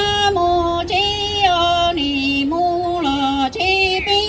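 A woman singing Hmong kwv txhiaj (traditional sung poetry) into a microphone. She holds long notes with a wavering vibrato, stepping between a few pitches, and slides down at the end of a phrase near the end.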